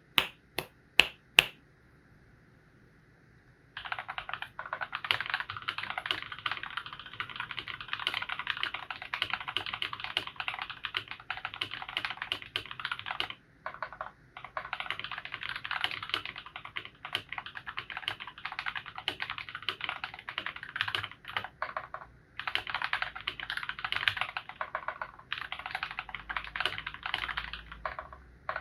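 Fast, continuous typing on a mechanical keyboard with Feker Holy Panda tactile switches, lubed with Krytox 205g0 and filmed, giving a dense clatter of keystrokes with a few brief pauses. It is preceded by a few sharp, loud clicks in the first second and a half.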